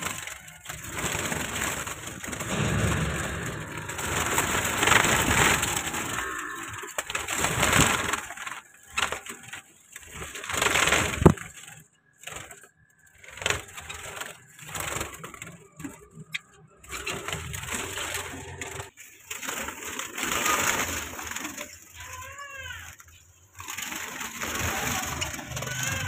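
Cage birds calling, with a run of short rising-and-falling calls near the end, over rustling of dry nest straw as the nest is handled.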